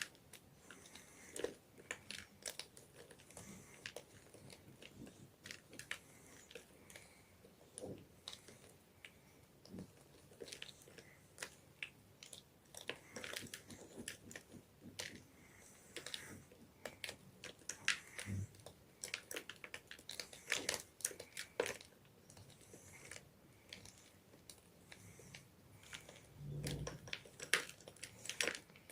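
Gym chalk crunching and crumbling in many short, irregular crunches, with a couple of duller low thumps.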